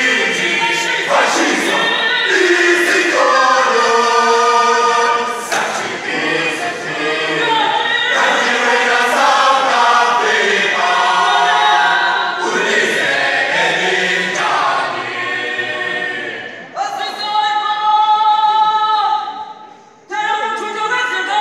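Isicathamiya (cothoza mfana) male a cappella choir singing in close multi-part harmony. Near the end the voices hold a long chord that fades away, then come back in.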